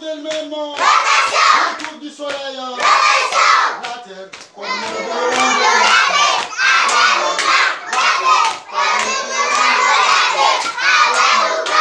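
A group of young children chanting and shouting together over repeated hand clapping.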